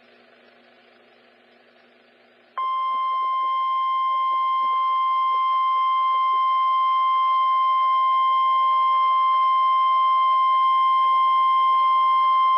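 NOAA Weather Radio 1050 Hz warning alarm tone, heard through a weather radio receiver: faint receiver hiss, then about two and a half seconds in a single steady high tone that holds for about ten seconds and cuts off suddenly. It is the alert tone that announces a Severe Thunderstorm Watch broadcast.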